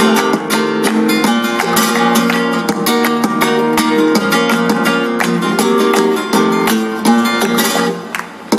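Flamenco guitar playing a tangos passage between sung verses, with sharp rhythmic strokes and palmas hand-clapping keeping the beat. The sound drops briefly near the end, then picks up again.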